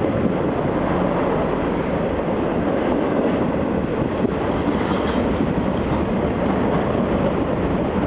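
Freight cars of a long mixed freight train rolling past close by: steady noise of steel wheels on the rails, with no horn or bell.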